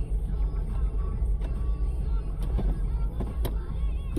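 Steady low rumble of a car heard from inside the cabin, with faint music over it.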